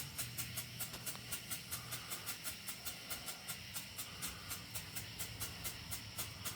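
Strobe firework in its strobing stage: an even, rapid pulsing hiss of about five pulses a second.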